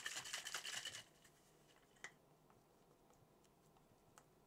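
A plastic bottle of makeup remover and a cotton pad being handled: about a second of rapid rustling and clicking at the start, then a single sharp click about two seconds in, and a few faint ticks as the bottle is tipped onto the pad.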